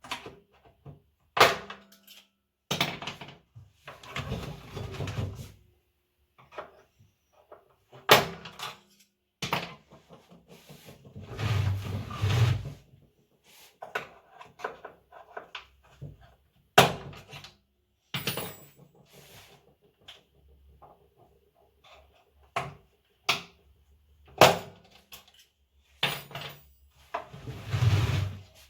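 Knocks, clicks and clatter of plastic and metal parts as a Samsung washing machine is taken apart by hand, with three longer stretches of scraping and rubbing.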